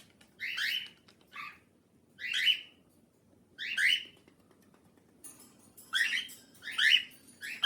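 Cockatiel calling: a series of about seven short chirps, each rising in pitch, repeated roughly once a second with a pause midway.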